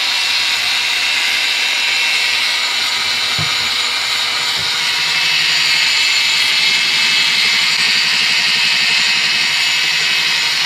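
Cordless angle grinder with a belt-file (finger sander) attachment running steadily, its fine, roughly 240-grit belt sanding a crankshaft journal, with a high whine over the rasp.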